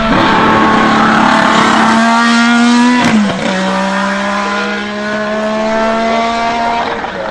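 1979 Renault RS10 Formula 1 car's 1.5-litre twin-turbo Gordini-Renault V6 driving past under power. Its pitch climbs slightly, then drops sharply about three seconds in as the car passes. It then holds a steady, slightly quieter note as the car pulls away.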